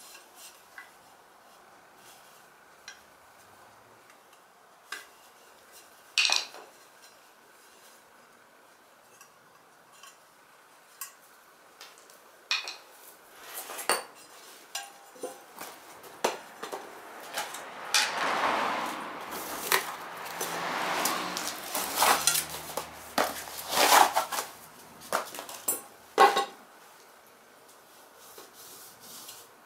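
Scattered metallic clinks and knocks from a scooter wheel rim and hand tools being handled, with one sharp clack about six seconds in. About two-thirds through comes a longer stretch of scraping and rubbing, then a few loud knocks.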